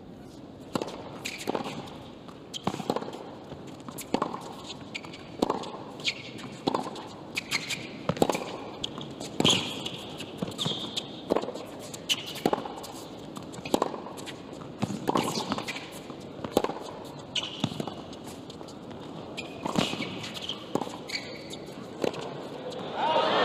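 Long tennis rally on a hard court: a steady run of sharp racquet strikes on the ball and ball bounces, with short high squeaks from players' shoes in between. Crowd applause breaks out near the end as the point is won.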